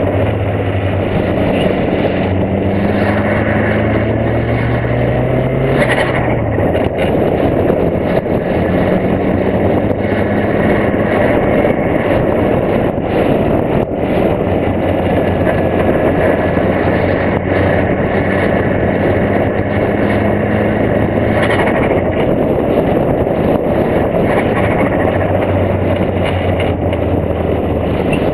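Golf Mk2 1.8T's turbocharged four-cylinder engine pulling along the road, heard from the bonnet under heavy wind and road noise. Its pitch climbs for the first several seconds, drops about six seconds in, then climbs slowly again.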